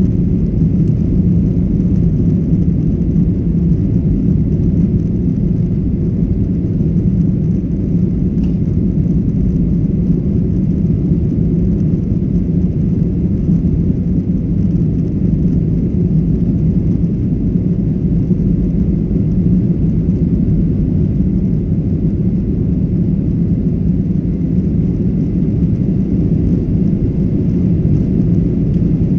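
Airliner cabin noise during takeoff: a steady low rumble of jet engines and airflow heard from inside the passenger cabin.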